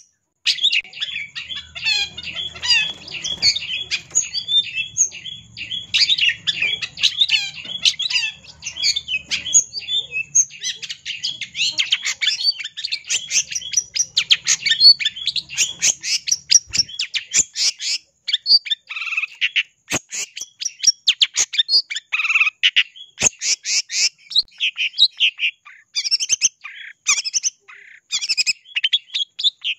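Long-tailed shrike (cendet) singing a fast, near-continuous chatter of short, high, rapidly varied notes, with a few brief breaks. It is a challenging song of the kind used to provoke rival shrikes into singing back.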